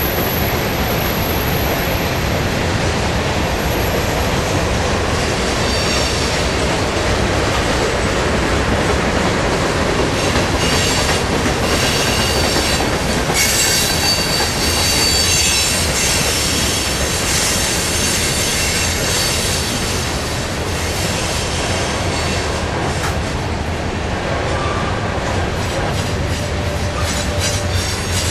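Cars of a mixed freight train (covered hoppers and tank cars) rolling past close by, with a steady loud rumble and rattle of steel wheels on rail. High-pitched wheel squeal rides over it from about 6 to 16 seconds in, and a rhythmic clacking over rail joints comes in near the end.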